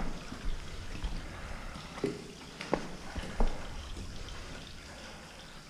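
Footsteps scrambling over loose, wet rock: a few scattered knocks and scrapes of stones, with water trickling over the rock.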